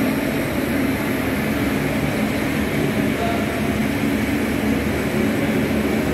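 Four turboprop engines of a C-130 Hercules running as the aircraft taxis, a steady drone with no change in pitch.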